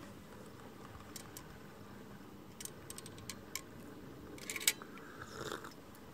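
Faint handling noise: a few light clicks and a brief rustle, with a denser cluster of clicks about four and a half seconds in, over quiet outdoor background.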